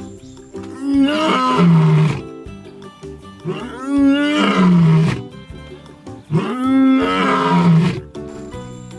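A lion roaring three times, each roar about a second and a half long, over background music.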